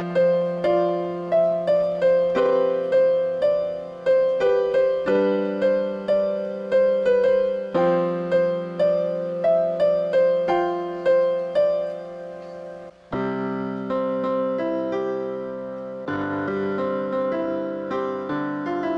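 Soft instrumental piano music: a melody of single struck notes, each fading, over held low notes. About 13 seconds in it breaks off briefly, then goes on with fuller sustained chords.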